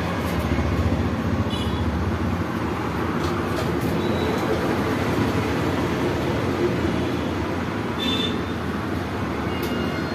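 A steady rumbling hum with two short high beeps, about one and a half seconds in and again about eight seconds in, from a cash machine.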